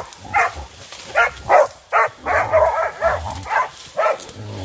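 Pig-hunting dogs barking in a rapid string of short, loud barks at a wild boar they have bailed up, with a denser run of calls about two seconds in.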